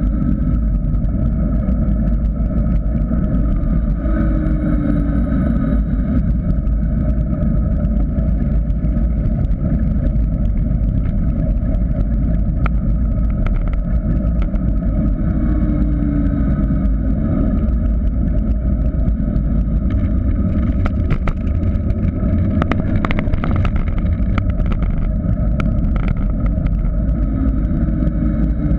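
Wind rushing over the microphone of a GoPro on a mountain bike descending a paved road at speed, a steady loud rumble mixed with tyre noise. A scatter of sharp clicks and rattles from the bike comes through, thickest a little past the middle.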